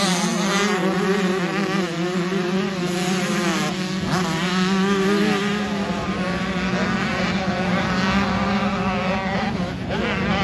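Several motocross motorcycle engines running and revving together during a start practice. Their pitches waver up and down over one steadier low drone.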